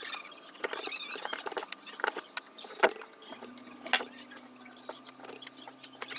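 Keycaps being pried off a computer keyboard: scattered faint plastic clicks and occasional short squeaks.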